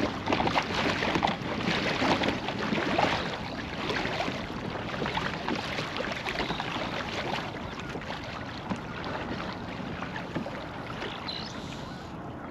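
Water splashing and lapping around a fishing kayak while a hooked redfish is fought on the line, busier in the first few seconds, with wind on the microphone.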